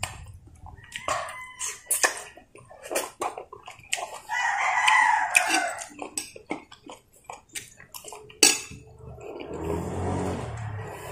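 A rooster crows once, about four seconds in, over close mouth sounds of eating by hand: chewing, smacking and small clicks. A low steady noise sets in near the end.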